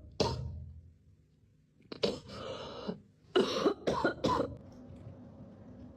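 A series of coughs: one just after the start, a longer harsh burst about two seconds in, then three or four quick coughs in a row, followed by a low steady background.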